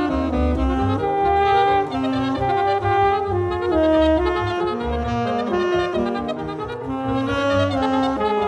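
Jazz quintet playing: alto and tenor saxophones hold long notes together over piano, double bass and drums.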